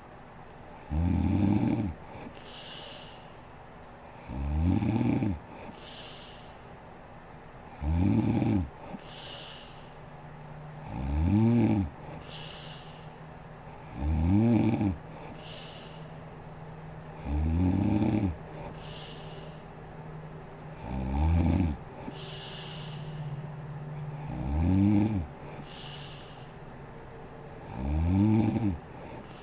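A sleeping woman snoring: nine loud, pitched snores at an even pace of about one every three and a half seconds, each followed by a softer, airy breath.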